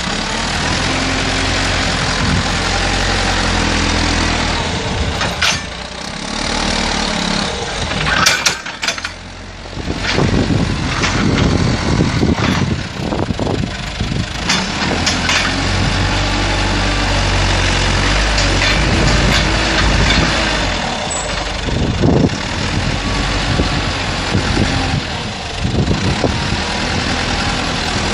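JCB backhoe loader's diesel engine working under load as the front bucket pushes and lifts soil, its note rising and falling with the work. Scattered knocks and clanks sound over the engine, the sharpest about eight to nine seconds in and again near 22 seconds.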